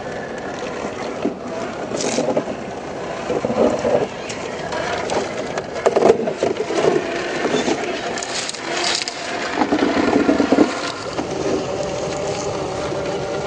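Traxxas TRX4 RC rock crawler climbing over boulders: its rubber tyres and chassis scraping, grinding and knocking on the stone in several irregular bursts.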